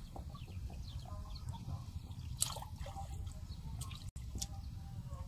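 Hands sloshing and splashing in shallow muddy water, with small drips and one sharper splash about two and a half seconds in, over a steady low rumble.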